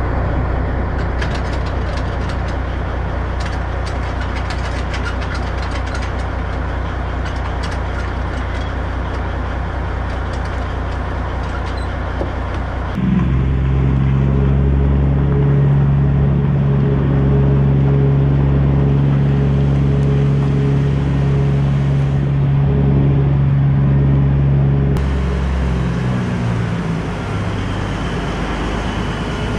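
Diesel engine of a semi truck idling, with a run of light clicks and rattles. About a third of the way in, the engine becomes louder and higher-pitched as the truck pulls away, then it drops back lower near the end.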